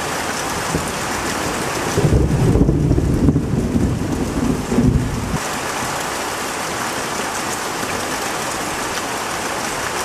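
Steady rain falling on leaves, with a deep roll of thunder from about two seconds in that fades out a few seconds later.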